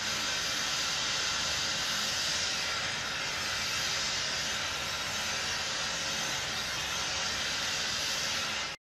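Wet sandblasting machine blasting fine sand under a running water supply onto a hardened steel file, a steady hiss that cleans the last hardening salt out of the file's cuts. It cuts off suddenly just before the end.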